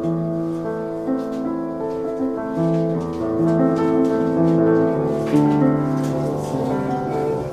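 An 1872 Rittmüller upright piano being played: chords and melody notes, each held for roughly half a second to a second and ringing over one another.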